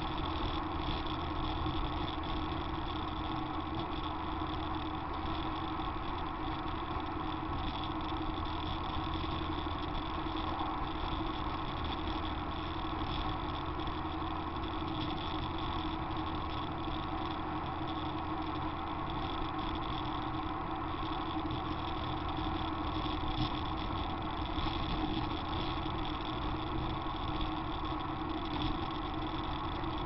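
Steady road noise of a vehicle cruising on a highway, picked up by a camera mounted outside beside its wheel: tyre and engine drone at a constant pitch, with little wind noise.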